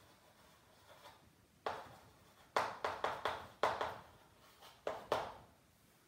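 Chalk writing on a blackboard: a run of about ten short, sharp strokes and taps of chalk on slate, bunched between about two and five seconds in.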